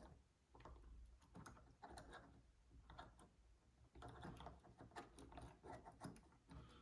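Faint, irregular small metallic clicks and scrapes of a GJ Locks Yale Superior Platinum MK2+ dimple pick working the pins of a Yale Platinum 3-star euro cylinder held under tension.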